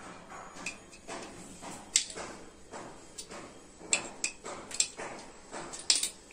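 Coins clicking and clinking as they are pushed one at a time through the slot of a red clay money bank, with several separate sharp clicks: one about two seconds in, a few close together around four to five seconds in, and two more near the end.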